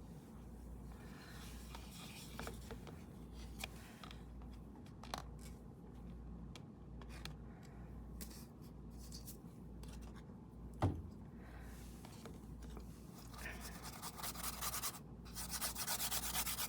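Paintbrush scrubbing paint onto a canvas: faint scattered strokes at first, then quicker rhythmic scrubbing near the end, with a single sharp knock about eleven seconds in.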